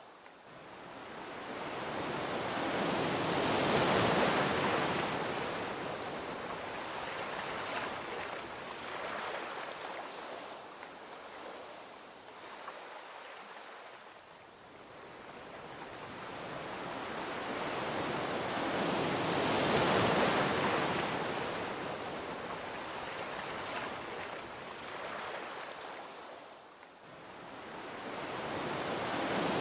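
Gentle ocean waves washing onto a beach. The surf swells up and ebbs away twice, each wave building for a few seconds and then fading back, with a third starting to rise near the end.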